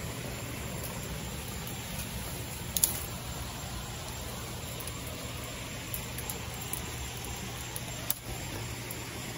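Leaves and branches of a dense shrub rustling as someone pushes into it, with a couple of brief sharp snaps, over a steady low hum.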